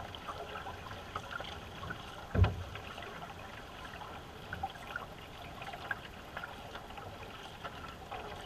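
Water rushing and trickling along a racing canoe's hull as it is paddled, with small splashes and drips from the paddle strokes. A single low thump about two and a half seconds in is the loudest sound.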